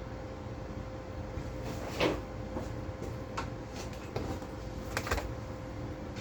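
A few scattered light clicks and knocks, like metal tools or parts being handled, spaced about a second apart, over a steady hum.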